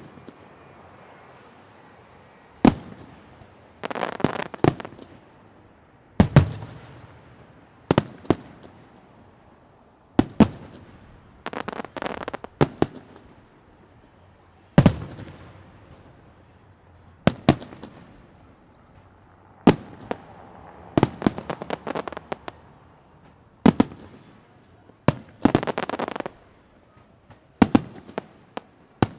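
Aerial fireworks display: loud shell bursts about every two to three seconds, several of them followed by a quick run of crackling.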